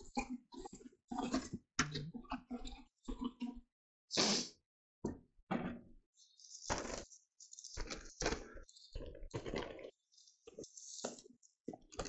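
Wet concrete being stirred by hand with a stick in a bucket: irregular scraping and squelching strokes with short gaps between them.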